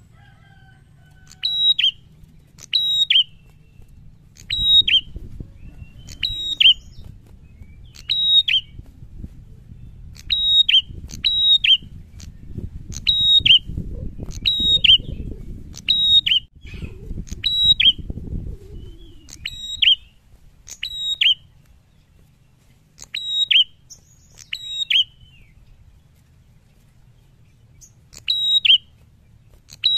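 A caged prenjak giving loud, sharp, high call notes over and over, about one every one to one and a half seconds, with two short pauses near the end. A low rumble sits under the calls through the middle.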